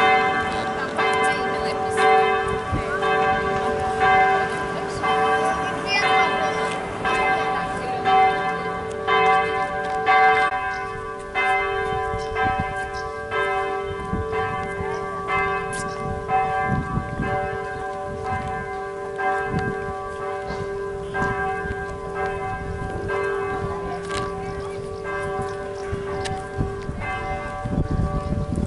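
Church bells ringing in a tower: several bells of different pitch struck over and over, about one stroke a second, each ringing on. The deepest bell fades out near the end.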